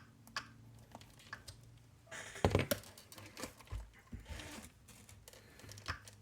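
Small clicks and light knocks of hard plastic RC car parts and small tools being handled during reassembly, with a louder cluster of clattering knocks about two and a half seconds in.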